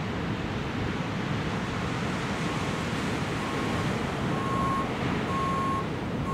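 Steady beach ambience of surf and wind. From about two and a half seconds in, a truck's backup-alarm beeper joins it, sounding about once a second and growing louder as the truck comes closer.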